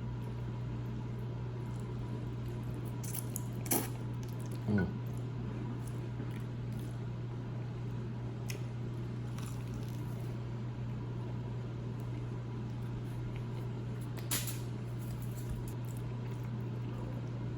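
Wet, squishy sounds of homemade spaghetti in sauce, with a few short sharp clicks scattered through, over a steady low hum.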